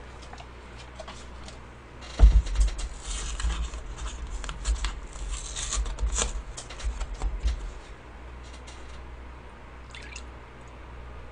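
Cardboard milk carton being handled at the table: a run of crackling, rustling and knocks for several seconds, then milk poured into a mug near the end.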